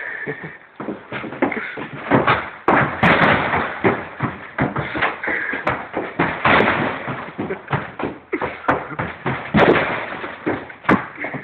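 A locked door being forced: many quick, irregular bangs and thuds as it is struck hard over and over.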